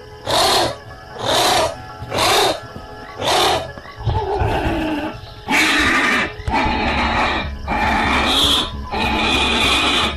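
Animal calls mixed with music: short calls about one a second at first, then longer and louder ones over a low rumble from about four seconds in.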